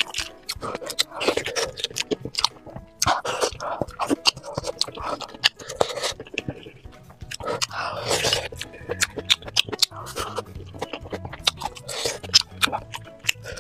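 Close-up eating sounds: wet chewing of soft, spicy tofu, with sharp clicks of wooden chopsticks against a glass bowl, over faint background music.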